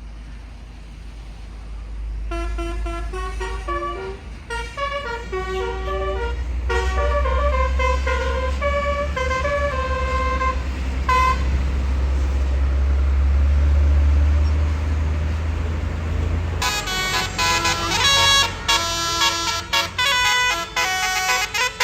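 A tour bus's basuri telolet horn playing a melody of changing notes over the low rumble of the bus, which grows louder. About three-quarters of the way in the rumble drops away and the horn switches to a fast run of short, clipped toots.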